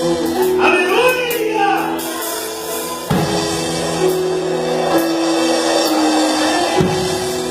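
Gospel band music: sustained instrumental chords with drum kit, a drum hit about three seconds in, and a voice shouting "Aleluia!" about a second in.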